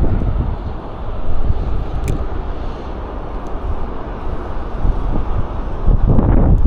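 Wind buffeting the microphone: a low, rumbling noise that swells and dips unevenly.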